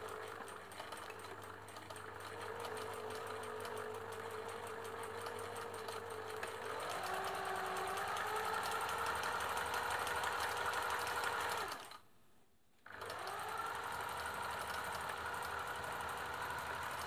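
Singer 766 sewing machine running, stitching a zigzag through fabric. It picks up speed about seven seconds in, cuts out for about a second near twelve seconds, then starts again and runs steadily.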